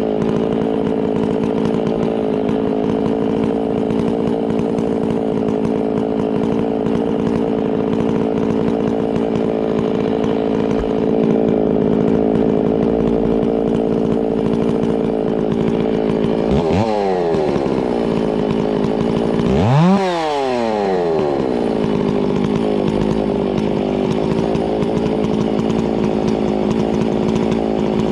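Chainsaw running at high revs, cutting through a log. Twice, about two-thirds of the way through, the revs drop away and then climb sharply back up.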